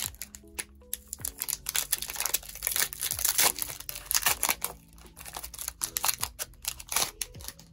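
Foil Pokémon booster pack crinkling and tearing as it is opened by hand: a dense run of irregular crackles and rustles.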